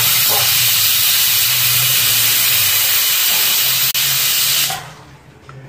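Stovetop pressure cooker whistling: steam blasts out from under the weight valve in a loud, steady hiss for nearly five seconds, then stops. The cooker has come up to pressure, and each whistle is counted toward the five that cook the mutton.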